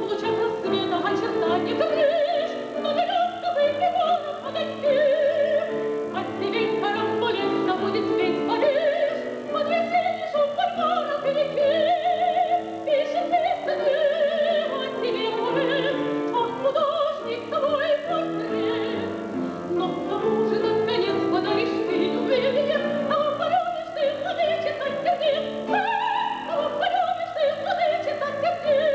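A woman singing in classical operatic style, her held high notes wavering with a wide vibrato, accompanied by piano.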